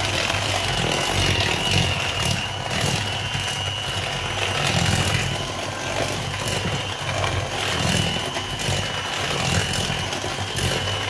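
Electric hand mixer running steadily, its beaters creaming margarine and sugar in a plastic bowl: a steady high motor whine over a low churning that swells and fades about once a second.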